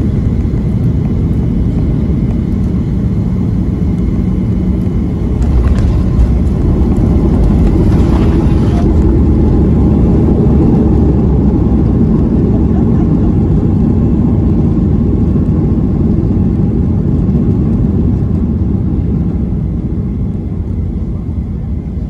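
Boeing 737 cabin noise during the landing rollout: a loud, steady rumble of the engines and the runway under the wheels. The roar swells about five seconds in as the engines spool up for reverse thrust, then eases off over the last few seconds as the jet slows.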